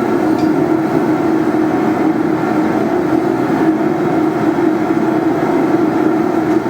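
Forge running steadily: a constant rushing hum with no hammer blows.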